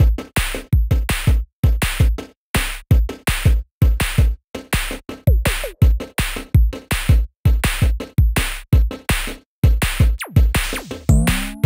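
Electronic intro music with a heavy drum-machine beat, chopped into short stuttering hits, with a falling sweep and then rising tones near the end.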